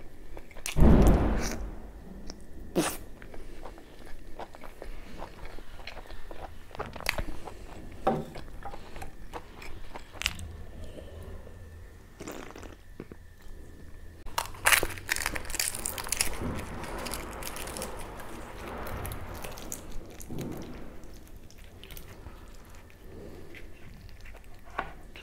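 Close-miked eating of mutton curry and puri: wet chewing, biting and smacking, with a loud thump about a second in. Around the middle he drinks from a can of cola, gulping.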